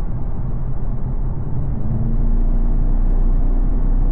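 Inside the cabin of an Audi TT at about 67 mph: the 2.0 TFSI turbocharged four-cylinder engine and road noise make a steady rumble. It grows louder about halfway through, with a deeper drone and a steady hum coming in, as the car is put under load.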